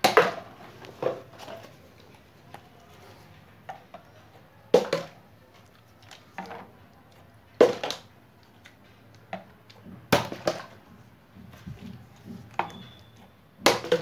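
A plastic water bottle flipped again and again, knocking hollowly as it strikes the Rubik's cube, the mat and the stone floor. The loud knocks come every two or three seconds, several followed by smaller clattering bounces.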